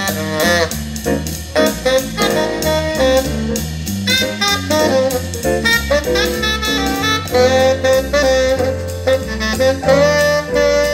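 Saxophone-led jazz, with a melody over a bass line and drums, played back through a pair of Infinity RS 1001 two-way bookshelf speakers during a listening test.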